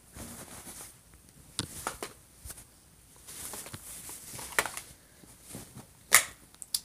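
A person exhaling a breath of smoke, then about three seconds later taking a long drag on a smoke, with scattered sharp clicks and knocks, the loudest near the end.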